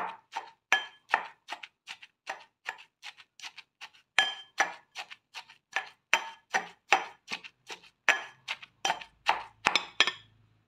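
A metal pestle pounding grated coconut and spices in a mortar to mix a coconut mallum, about three strikes a second, each with a short metallic ring. The pounding stops near the end.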